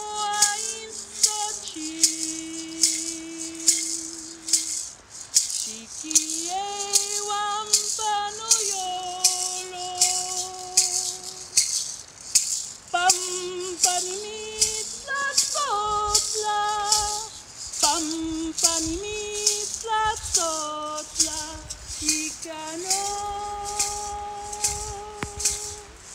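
A woman singing a Náhuatl song in long held notes that slide between pitches, keeping time with a hand rattle shaken in a steady beat.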